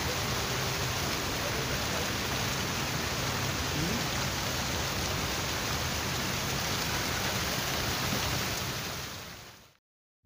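Water fountain splashing steadily, an even rush of falling water that fades out near the end.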